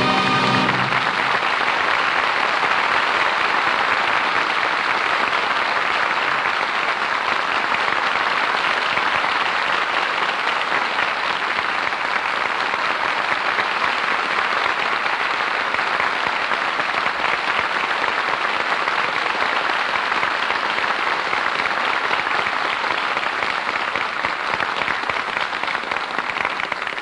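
Studio audience applauding steadily and at length at the close of the radio play. The tail of a held music chord dies away in the first second.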